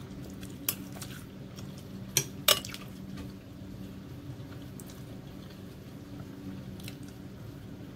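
A few sharp clicks of tableware, the loudest about two and a half seconds in, over a steady low hum.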